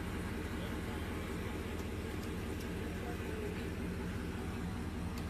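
Engine running steadily with a low, even rumble.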